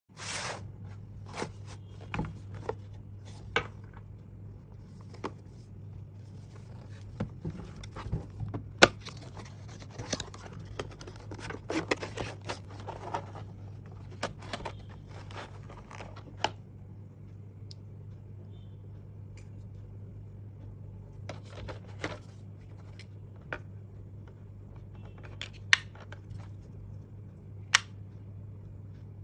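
Unboxing sounds: a small cardboard box and plastic packaging being handled, with scraping and tearing rustles and scattered sharp clicks, over a steady low hum.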